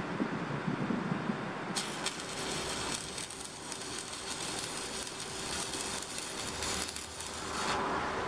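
Stick (MMA) arc welding: the electrode's arc crackles and hisses steadily, starting about two seconds in and cutting off near the end.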